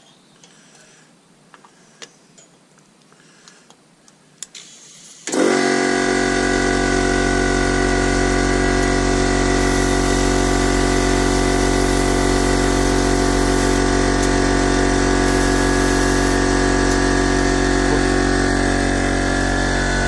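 Electric air compressor starting up about five seconds in and running steadily with a loud motor hum and pump drone, refilling its tank after air was drawn off to inflate the tyre; it stops abruptly near the end. Light clicks of handling come before it starts.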